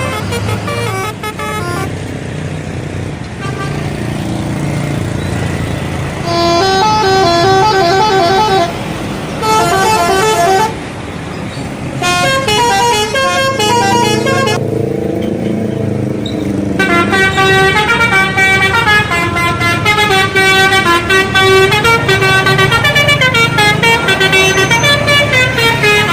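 Bus telolet horns playing rapid multi-note melodies over a bus engine running. The tunes come in short bursts at first, then play nonstop through the last third.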